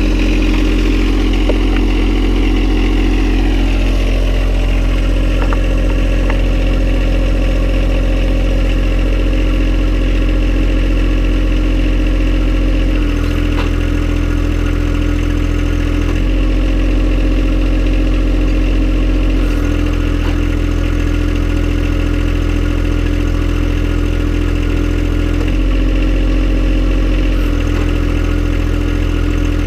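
John Deere 1025R's three-cylinder diesel engine running steadily, its note changing in steps about five times as the hydraulic mower-deck lift is worked.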